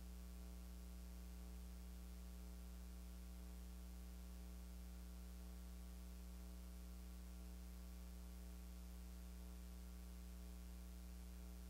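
Steady low electrical mains hum with a faint hiss underneath; no singing or speech is heard.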